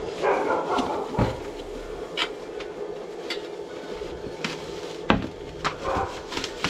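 A power inverter being unpacked: its plastic bag rustling and foam packing blocks and cardboard being handled, with scattered knocks and clicks. The sharpest knock comes a little after five seconds in.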